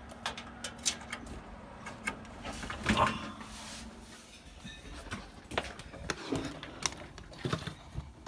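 Scattered, irregular clicks and taps from a computer mouse and keyboard in use, with a louder rustling swell about three seconds in.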